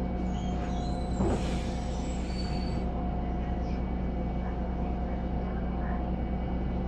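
Steady engine and drivetrain hum of a BredaMenarinibus Avancity+ CNG city bus heard from inside the cabin, with a short hiss of compressed air from about a second in.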